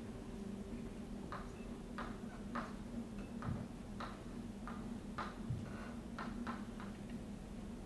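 Faint, irregular short taps and strokes of someone writing on a lecture-hall board, about a dozen over several seconds, over a steady low hum.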